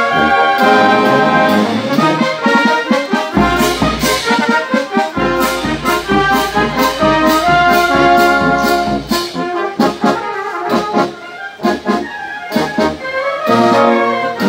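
Italian wind band playing a march: brass and sousaphones over a steady bass-drum and cymbal beat. The band drops quieter about ten seconds in, then swells again near the end.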